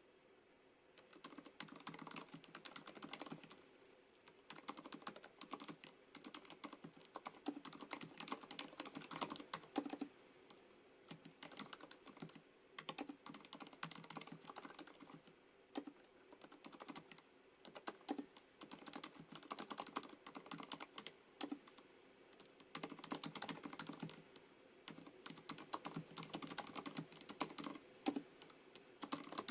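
Typing on a FILCO Majestouch MINILA-R Convertible mechanical keyboard with Cherry MX Silent switches: quick runs of keystrokes starting about a second in, broken by brief pauses.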